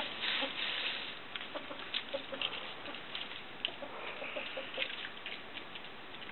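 Sebright bantam hens clucking softly while they scratch and peck in dry leaves and gravel. The clucking comes as scattered short notes, with a run of brief rustles and scratches.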